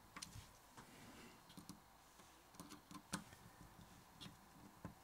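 Near silence, broken by a few faint, sparse clicks of a screwdriver working a screw in the microphone's metal body, one slightly louder about three seconds in.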